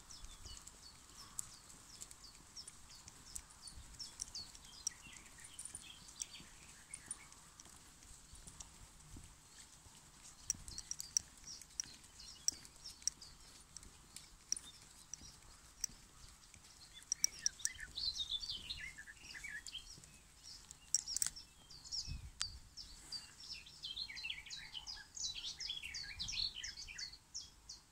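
Small birds chirping and twittering in quick runs of short high notes, busiest in the second half, over scattered sharp clicks of steps on a paved path.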